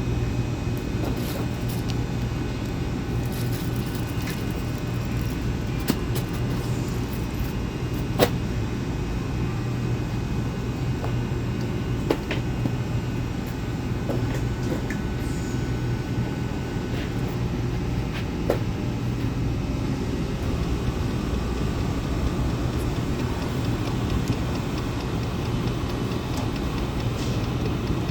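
Portable diesel heater running steadily: a constant low rumble and hum, with a few scattered sharp clicks.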